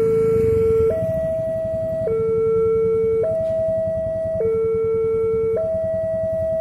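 Railway level-crossing warning alarm sounding its two-tone signal, a low note and a higher note alternating steadily, each held for just over a second, while the barriers are down for an approaching train. A low rumble runs underneath, a little louder for the first second.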